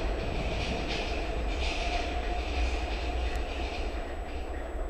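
MF67 metro train running as it pulls out of the station into the tunnel: a steady rumble with a faint whine around the middle.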